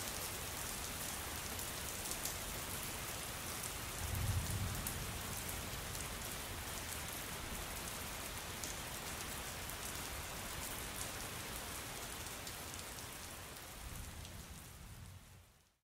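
Steady rain-like hiss with scattered fine ticks of drops. A low rumble swells briefly about four seconds in, and the sound fades out at the very end.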